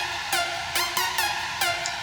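Background electronic dance music: a repeating pattern of sharp synth notes that sweep down in pitch.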